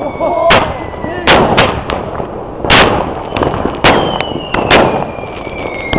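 Fireworks battery firing: a series of loud, sharp bangs about a second apart, seven in all, with a thin falling whistle in the second half.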